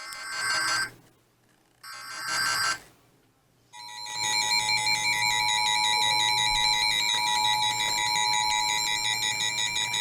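Emergency Alert System tones interrupting a broadcast. First come two roughly one-second bursts of warbling SAME header data, about a second apart. About four seconds in, the steady two-tone attention signal (853 and 960 Hz) starts and holds.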